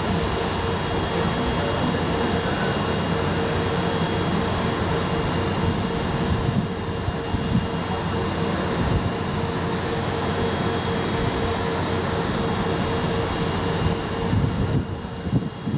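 Double-headed EF64 electric locomotives standing still with their auxiliary machinery running: a steady hum with a constant mid-pitched tone and a faint high whine. Near the end the hiss drops and uneven low rumbles come in.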